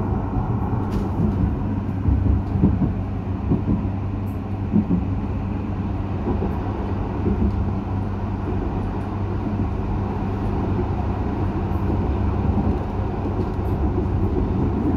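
Croydon tram in motion, heard from inside the car: a steady running rumble of wheels on rail with a low, even hum.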